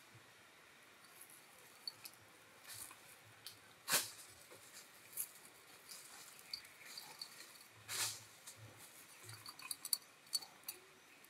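Scattered light taps, clicks and rustles of a kitten batting at a dangling toy on a string and shifting in a straw-lined nest, with two louder crackling rustles about four and eight seconds in and a quick run of ticks near the end.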